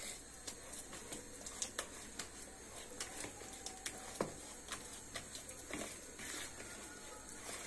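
Margarine being mashed into a semolina dough mixture in a bowl until no lumps are left: irregular soft squishes and small clicks.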